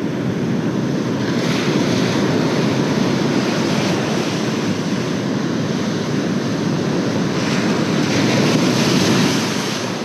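Ocean surf breaking and washing up a sandy beach, with wind on the microphone. The wash swells louder about a second and a half in and again late on.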